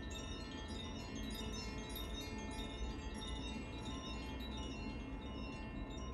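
Carillon chimes played by hand: many high, bright ringing notes struck in quick succession and overlapping as they ring on, over a steady low background rumble.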